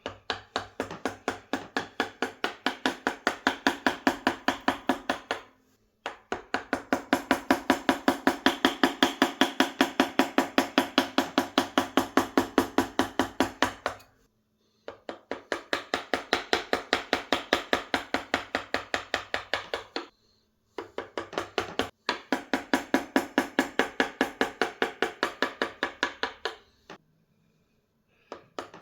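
Pfeil #12 carving chisel being tapped through totara wood in rapid, even strikes, about five a second. The taps come in four runs of several seconds, each broken by a short pause.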